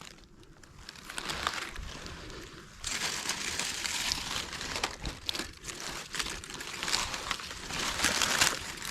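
Close rustling and crinkling, quiet at first and louder from about three seconds in.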